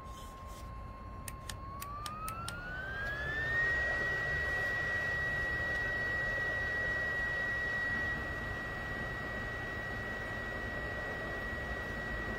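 BioLite CampStove 2's built-in fan whining steadily, then rising in pitch over about two seconds to a higher, louder steady whine as it is switched up to a faster setting, with a stronger rush of air through the wood fire.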